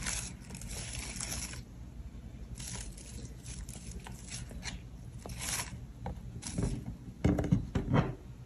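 Fingers placing sliced black olives onto a cheese-topped flatbread pizza on a wooden board: faint short rustles and scrapes, with a few louder soft knocks near the end.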